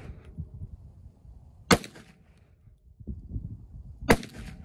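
Two shots from a Kel-Tec PMR-30 .22 Magnum semi-auto pistol, about two and a half seconds apart, each a single sharp crack.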